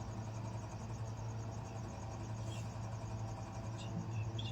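Crickets chirping in a steady high pulsing trill, over a steady low hum.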